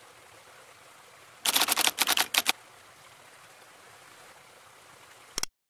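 Steady rush of a small waterfall splashing onto rocks. About one and a half seconds in, a loud burst of rapid mechanical clicks lasts about a second. A single short click comes near the end, and then the water sound cuts off abruptly.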